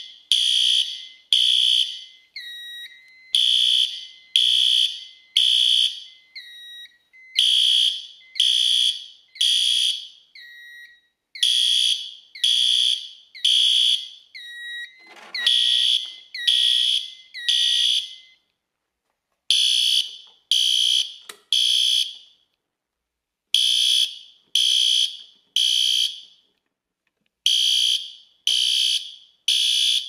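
Fire alarm horns sounding an agent (suppression-discharge) alarm, set off from a halon release pull station. Short, high-pitched blasts come in groups of three with a pause between groups, the temporal-three evacuation pattern. A second, lower tone sounds with them until about halfway through, then stops.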